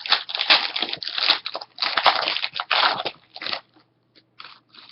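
A trading card pack wrapper being torn open and crinkled, a dense crackling rustle that dies down to a few short rustles over the last second or so.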